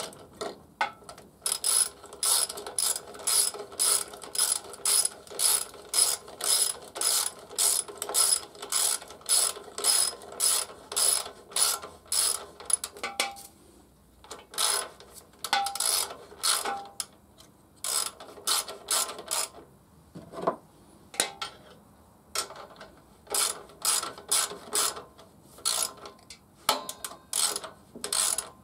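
Hand socket ratchet clicking as a bolt is wound in at the horn mount. It goes in quick, even strokes, about two or three a second, for the first dozen seconds, then in shorter runs with pauses between them.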